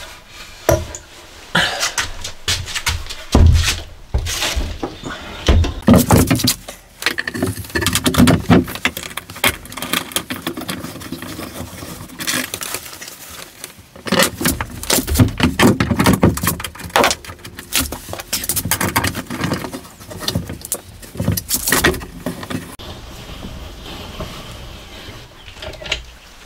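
Irregular knocks, scrapes and metallic clinks of a wooden board being handled against a van's bare sheet-metal wall and bolted in place by hand, in two busy spells, quieter near the end.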